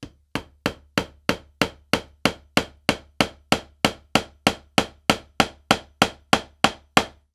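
A steady run of sharp hammer-like knocks, about three a second and evenly spaced, each ringing out briefly, over a faint low hum.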